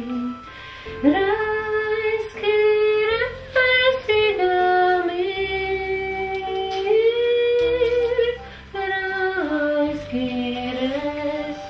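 Music: a female voice sings a slow melody in long held notes over a soft accompaniment.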